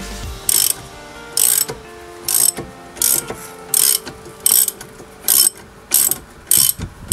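Ratchet wrench on a 15 mm socket winding out the brake caliper carrier bolts at the back of a Ford Mondeo's front hub. It makes a short burst of ratchet clicks on each back-swing, nine strokes at roughly one every two-thirds of a second.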